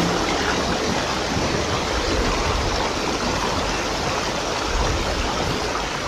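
Shallow rocky stream rushing and splashing over boulders, a steady, even rush of water.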